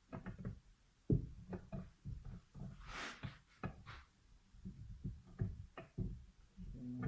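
Irregular knocks and clatter of parts and tools being handled on a workbench, with a short hiss about three seconds in.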